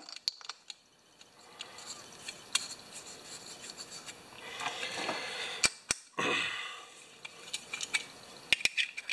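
Small metal clicks and light scraping from a Tecumseh carburetor's float bowl and bowl bolt being fitted and screwed on by hand, with a few sharp clicks near the middle and again near the end.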